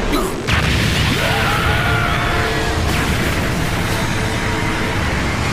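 Cartoon explosion sound effect of torpedoes striking a ship: a sudden heavy boom about half a second in, then a sustained low rumbling blast, over background music.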